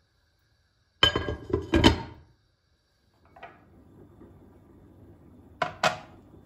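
Kitchen things being handled and set down: a quick cluster of knocks and clinks with a little ringing about a second in, a faint click, then two sharp clicks near the end over a faint low hum.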